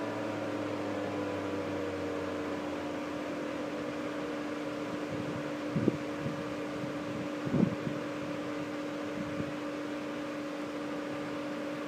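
American Signal T-128 outdoor warning siren winding down, its falling tones fading out over the first couple of seconds, over a steady hum. Two brief low thuds come about midway.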